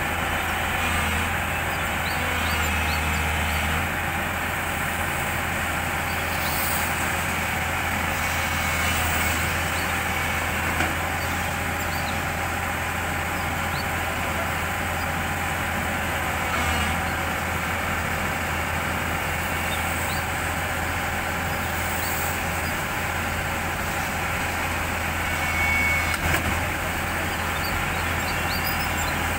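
Diesel engine of a Tata Hitachi EX200 crawler excavator running steadily under light load while it works its boom and bucket, a constant low drone with a few faint clicks.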